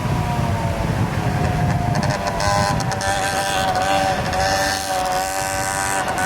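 Street traffic with a motor vehicle's engine running at a steady, slightly sagging pitch, over a low rumble that fades out about two to three seconds in.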